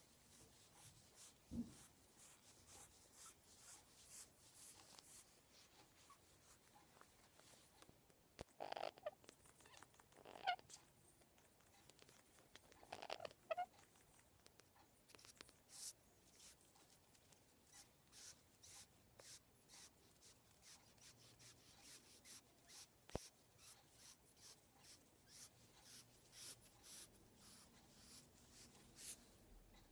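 Pionus parrot wheezing: short, hissy breaths repeated about twice a second, with a few louder squeaky calls in between.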